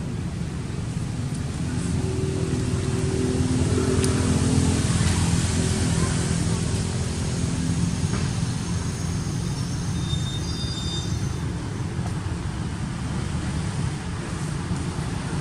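Steady low rumble of distant motor traffic, swelling a little a few seconds in, with a faint engine-like hum.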